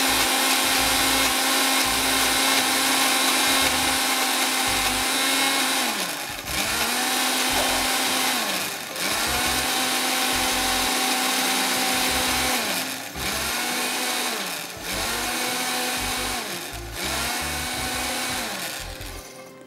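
Electric blender chopping herbs, garlic and olive oil into chimichurri sauce. It runs steadily for about six seconds, then is pulsed on and off in five short runs, the motor's pitch sagging at each stop and rising again as it restarts, to keep the sauce coarse rather than a smooth paste.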